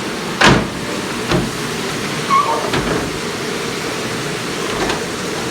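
Commercial Hobart dishwasher running, a steady rush of spraying water, with a few sharp clattering knocks, the loudest about half a second in.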